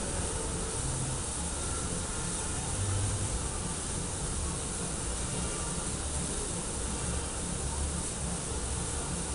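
Steady hiss of steam from a standing Prussian G12 class steam locomotive, 58 311, with a low rumble underneath.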